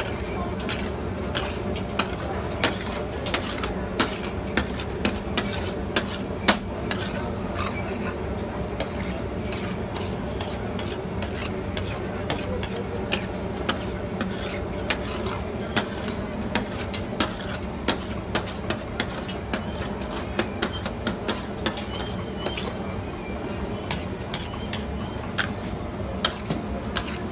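A metal scraper stirring chunks of meat on a large flat griddle, clacking against the metal plate about once or twice a second while the meat sizzles, over a steady low hum.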